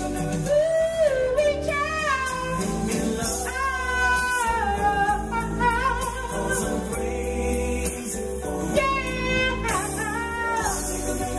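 A man singing a soul song into a handheld microphone over accompanying music, with long held notes that slide and bend in pitch.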